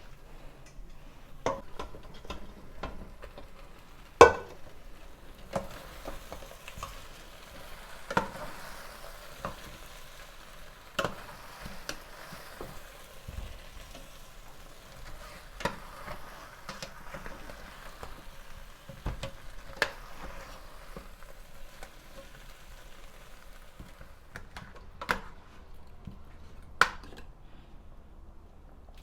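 Tomato sauce with chicken pieces sizzling in a pot while it is stirred, the spoon knocking against the pot now and then, loudest about four seconds in. The sizzle dies down over the last few seconds.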